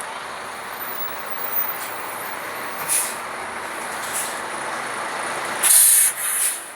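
Large bus's air brakes hissing over steady engine and road noise: three short hisses, then a much louder double hiss near the end.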